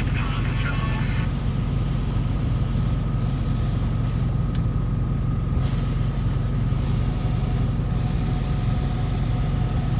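The engine of an old road vehicle running steadily: a constant low hum with a faint steady whine above it.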